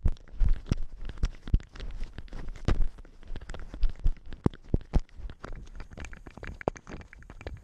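A cat walking over snow with a GoPro strapped to it: irregular crunching steps and knocks from the camera jostling, close on the microphone.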